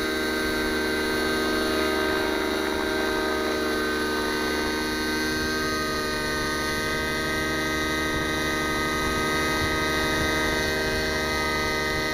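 Nitro-powered JR Vibe RC helicopter with an O.S. glow engine running steadily at flying speed while it hovers low over grass, a whine of several steady pitches together.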